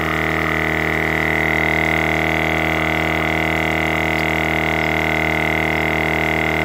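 A 300 W, 23 A portable electric tyre inflator running steadily, pumping up a car tyre from zero pressure; the pressure is still low, with the gauge needle slowly climbing.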